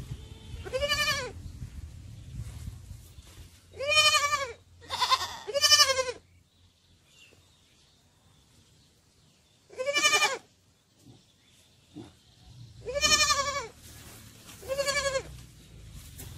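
Sheep and lambs bleating: seven high, wavering bleats of about half a second each, three of them close together, then a pause of a few seconds before the rest.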